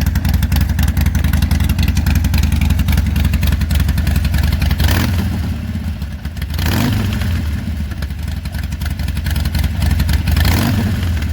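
Harley-Davidson Sportster's V-twin running through Hard Drive Radium slip-on mufflers, a deep, loud exhaust note with a few short throttle blips, about five, seven and ten and a half seconds in.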